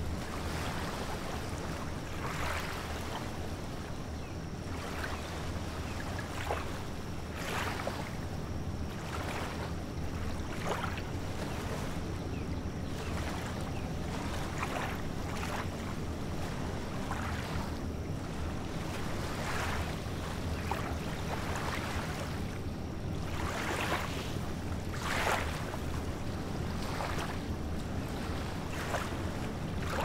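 Small waves lapping on a sandy beach, with short irregular splashes every second or two over a steady low rumble of surf and wind.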